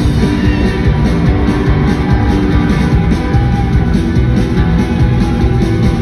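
A live rock band playing loud: electric guitars strummed over a full drum kit.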